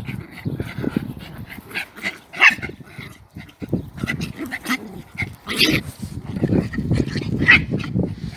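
A German Spitz mother and her puppy tussling, with a few short high-pitched dog cries spread through, the loudest about two and a half, five and a half and seven and a half seconds in.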